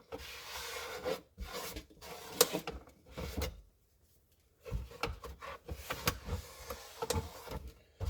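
Rubbing and wiping on a plastic turn-signal light housing to clean it off and dry it before it is glued. There are scrubbing passes at first, a short pause about three and a half seconds in, then light clicks and scrapes of handling.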